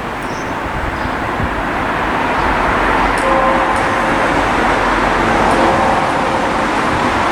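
Steady road traffic noise, slowly growing louder. About three seconds in, a tubular clock bell is struck once and rings on: a stroke of the clock's eight o'clock hour strike.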